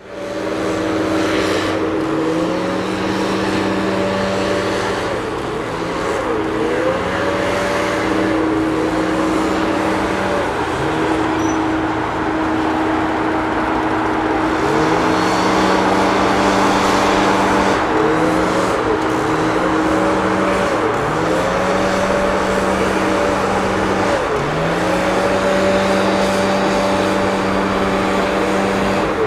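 Street leaf vacuum machine running and sucking up dry leaves: a steady engine hum with its pitch swelling upward again and again every couple of seconds, over a loud rush of air and debris.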